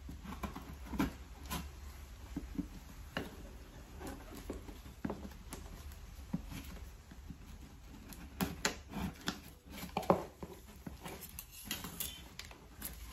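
Cardboard parcel box being handled and opened by gloved hands: irregular scrapes, taps and rustles of cardboard and packaging, with a few sharper knocks about eight to ten seconds in.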